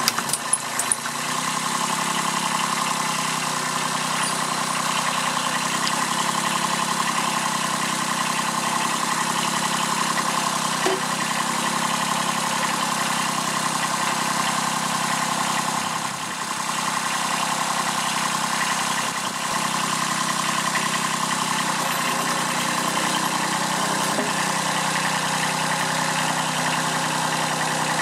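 Kubota B7001 tractor's small diesel engine running steadily while it winds in a hoist cable. A few sharp clicks sound right at the start, and the level dips briefly about halfway through.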